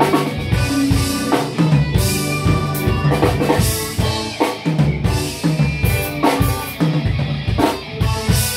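Band rehearsing: a drum kit with bass drum and snare hits drives the music over sustained pitched instruments.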